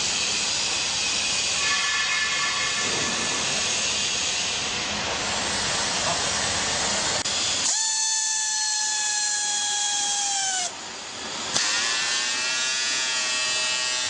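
Pneumatic strapping tool working on plastic strap around a bale: a steady air hiss, then about eight seconds in a high motor whine that sags in pitch and cuts off, followed by a sharp click and a second whine that rises in pitch.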